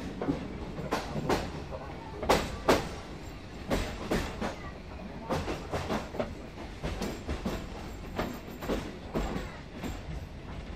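Narrow-gauge railway carriage running, heard from inside: a steady low rumble with the wheels clicking over rail joints in pairs, a new pair roughly every second and a half. Muted passenger chat runs underneath.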